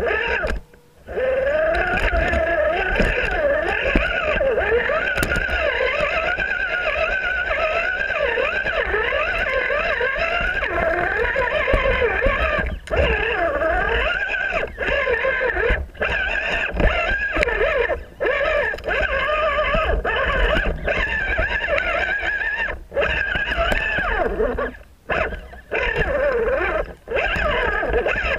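Radio-controlled rock crawler's electric motor and gear train whining as it crawls over boulders, the pitch wavering up and down with throttle and load, over a low rumble. The whine stops briefly several times and then picks up again.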